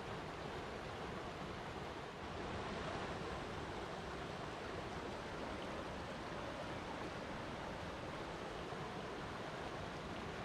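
Flowing water rushing steadily, an even hiss with no separate splashes or breaks.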